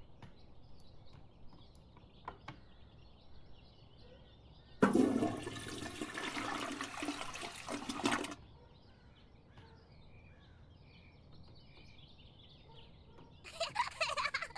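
A rushing whoosh of noise lasting about three and a half seconds, starting about five seconds in, over faint high chirps; a few short clicky sounds near the end.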